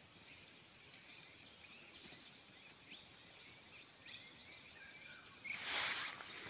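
Forest ambience: a steady high insect drone with faint, scattered bird chirps, and a brief loud rustling hiss about five and a half seconds in.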